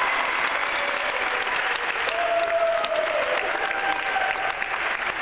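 Audience clapping steadily, many hands together, with a few faint voices calling out over it.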